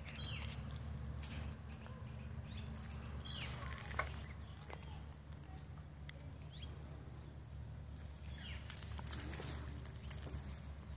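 Puppy playing with and chewing a nylon leash on concrete: soft scrabbling, rustling and scattered clicks over a low steady rumble, with a few short high chirps now and then.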